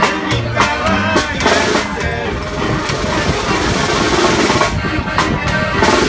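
A live band plays, with accordion, upright bass, guitar and snare drum. The drum strikes drop out for a couple of seconds mid-way and come back near the end, while the accordion's held notes carry on.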